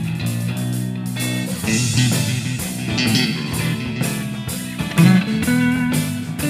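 Music: a guitar-led song with a steady beat.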